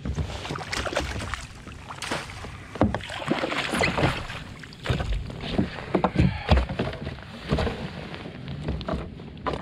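Water splashing and sloshing as a tautog is scooped up in a landing net and hauled aboard a kayak, with many irregular knocks and rattles of the net and gear against the hull.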